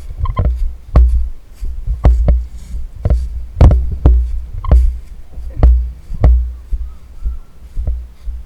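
Low thumps with sharp knocks, about one or two a second, over a steady low rumble: the footsteps and jolts of an airsoft player on the move, carried through a body-worn camera.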